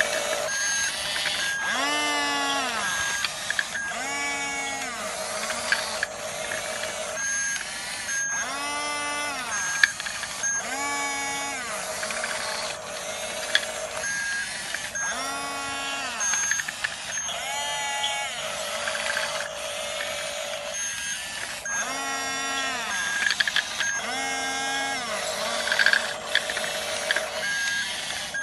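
Electric drive motors and gearbox of a radio-controlled toy bulldozer whining in repeated bursts about every two seconds. Each burst rises in pitch, holds briefly, then falls away, with a steadier hum in between.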